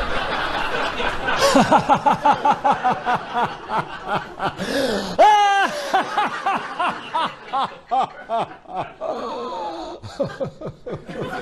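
A man laughing loudly in rapid, repeated bursts, with a high rising squeal a little after five seconds in.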